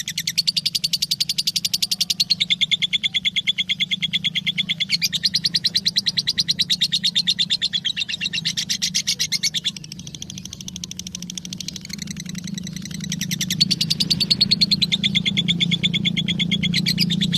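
Lovebird singing a long, fast chattering trill of rapid repeated chirps, in sections that step up and down in pitch. The song eases off about ten seconds in, then builds again. A steady low hum runs underneath.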